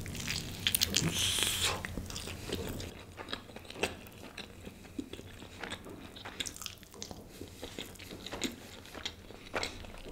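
A bite into an egg-and-cheese-stuffed kulcha flatbread, close to the microphone, with loud crunching for the first couple of seconds. Steady chewing with many small mouth clicks follows.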